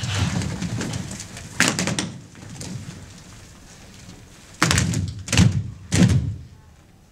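A group of dancers' feet landing and stamping on a wooden stage floor. A rush of thuds comes at the start, then one sharp hit, then three heavy stamps in quick succession near the end.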